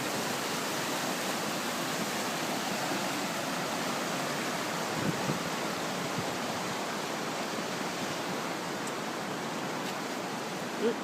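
A fast-flowing river, a steady rushing of water with no change in level.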